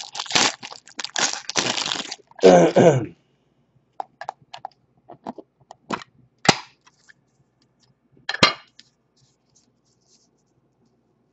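A foil card-pack wrapper crinkling for about two seconds as it is torn open and handled, then a brief voice sound. Scattered sharp clicks and taps follow as trading cards and a clear plastic card case are handled, with two louder clicks.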